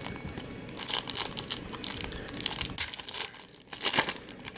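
Plastic trading-card pack wrapper crinkling and tearing as it is opened, in irregular crackly bursts starting about a second in.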